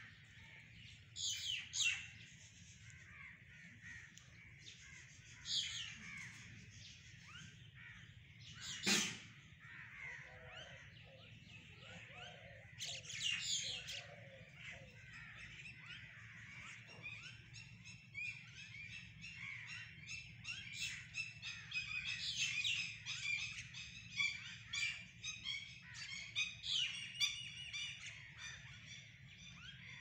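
Mynas calling: a few separate harsh squawks in the first half, the loudest about nine seconds in, then from about halfway a busy run of rapid chattering notes.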